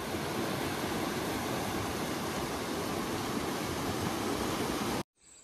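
River rapids: water rushing and churning over rocks in a steady, even roar that cuts off suddenly about five seconds in.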